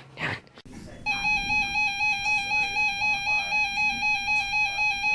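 Weather radio alert tone: a loud, high electronic tone that starts about a second in and pulses about four times a second, sounding ahead of an urgent weather message.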